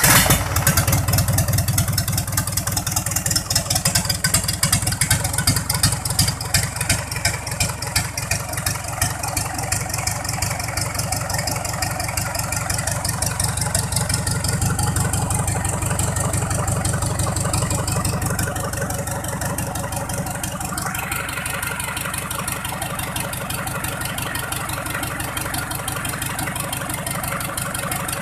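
Freshly reassembled Mitsubishi PS120 single-cylinder diesel engine running just after starting, with a fast, even firing beat. About twenty seconds in its sound changes: the deep beat weakens and a higher-pitched sound comes up.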